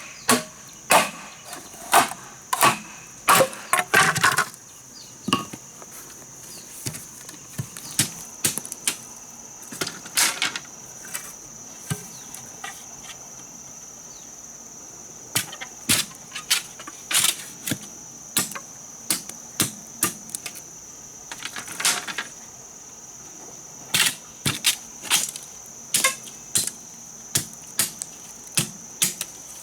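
Irregular sharp knocks of a tool striking wood, coming in quick clusters with short pauses between, over a steady high-pitched drone of insects.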